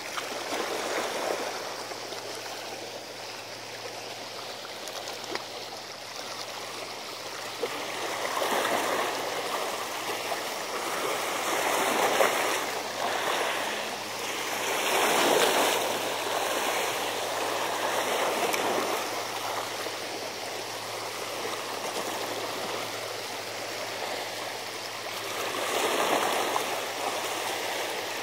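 Seawater sloshing and washing against a seawall, a steady rush that swells every few seconds, loudest a little past the middle and again near the end.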